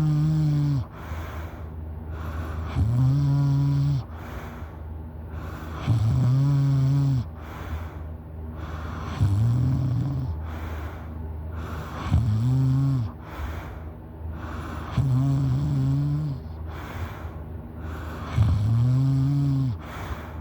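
A person snoring loudly in a steady rhythm, about one low, even-pitched snore every three seconds, each lasting about a second, with softer breathing between them.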